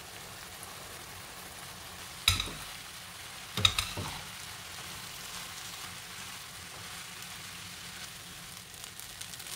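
Corn frying in butter, sizzling steadily in a non-stick pan while cooked rice is added and stirred through with a silicone spatula. Two sharp knocks against the pan, a little over two seconds in and again about a second and a half later.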